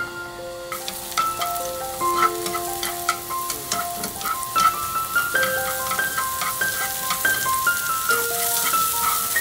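Chopped onion, sausage and mushrooms sizzling in hot oil in a frying pan. The sizzle starts suddenly about a second in and goes on as a steady hiss full of small crackling pops, under a background music melody.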